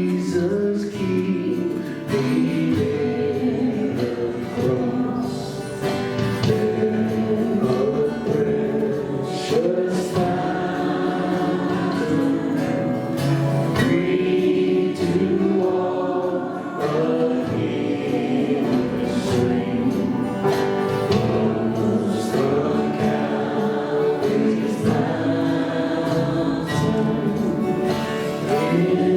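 A group of voices singing a Christian worship song together, with instrumental accompaniment, steady throughout.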